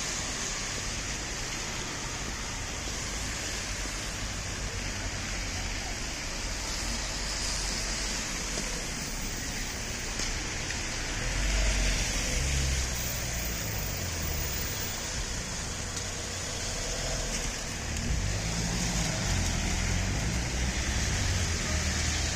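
Road traffic in the rain: a steady hiss of rain and wet tyres, with the low rumble of vehicles passing, louder about halfway through and again near the end.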